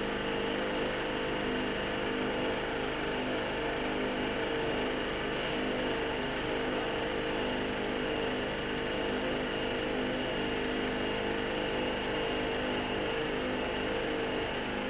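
A small engine running steadily, with the hiss of a high-pressure spray jet as a marble statue is washed down during cleaning.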